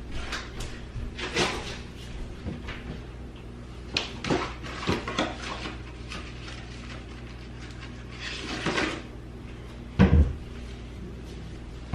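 Kitchen work sounds: scattered clicks and knocks with a few brief rustles, and a loud knock about ten seconds in, the kind made by cupboard doors and drawers being opened and shut.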